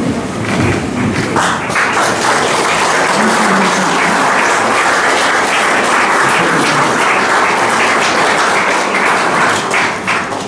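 Audience applauding, swelling up a second or two in and dying away near the end.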